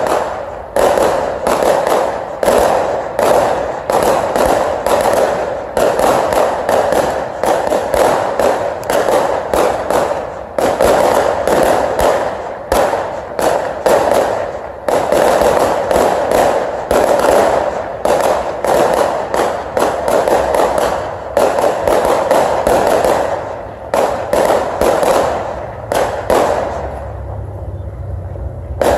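Aerial fireworks display: shells bursting in rapid, almost continuous bangs and crackles, several a second. The barrage eases off for the last couple of seconds.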